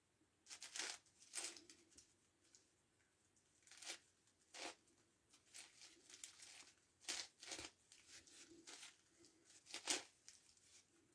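9x9x9 Rubik's Cube being turned by hand: irregular short plastic scrapes and clicks as layers are rotated, in uneven bunches with brief pauses between.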